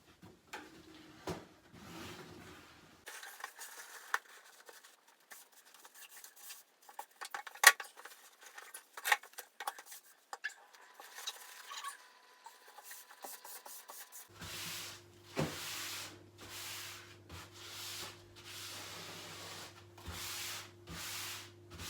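Glass fiber wall covering being handled and hung on a freshly glued wall: scattered clicks and rustling, then, about two-thirds of the way in, even rubbing strokes about once a second as the sheet is smoothed down, over a low steady hum.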